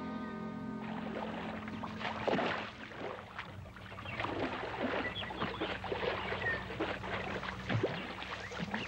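Water splashing as a person swims with arm strokes, many short irregular splashes. A brief tail of music ends about a second in.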